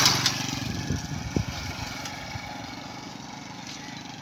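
A passing vehicle's engine, loudest with a rush of noise right at the start, then fading away over the next two seconds.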